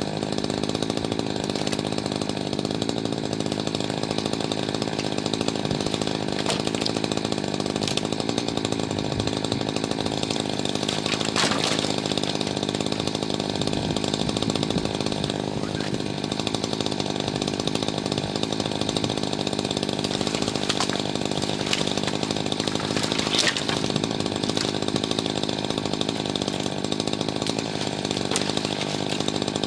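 Gasoline chainsaw running steadily at speed, with a few brief sharp cracks.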